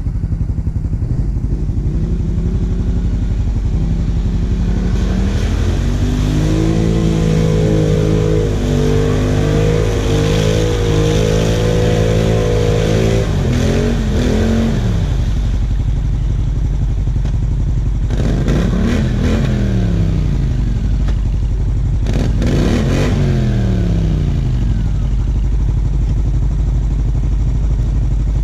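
ATV engines running, with a held higher rev through the middle and then several revs rising and falling in pitch, over a steady low engine rumble.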